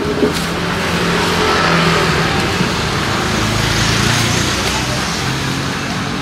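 A motor vehicle passing close by in street traffic, its engine and tyre noise building and then easing off.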